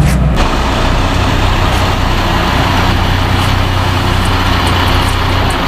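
Loud, steady running of a vehicle engine, with a strong low drone under dense noise.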